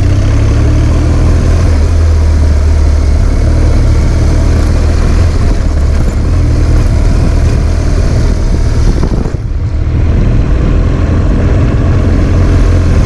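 Adventure motorcycle engine running steadily under way, with a rushing noise above it; the engine briefly eases off about nine seconds in, then picks up again.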